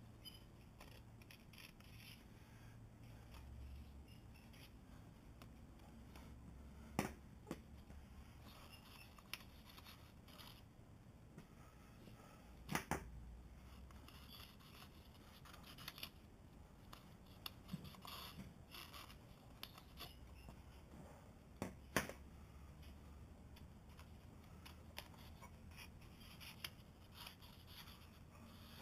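Near-silent room tone with scattered light clicks and faint scrapes, three of them sharper, from a thin straightedge and a card shim being handled against a faired boat hull to gauge low spots.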